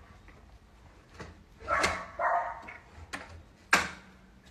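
A dog barking: two barks close together about two seconds in, then one sharp, short bark near the end.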